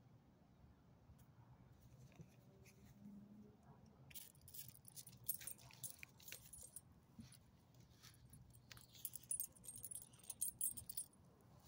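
Metal tags on a small dog's collar jingling in two spells of quick clinks as the dog walks on its leash.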